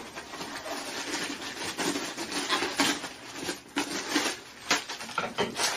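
Crumpled stuffing paper rustling and crinkling as it is pulled out of a mini backpack, in a quick run of irregular scrunches.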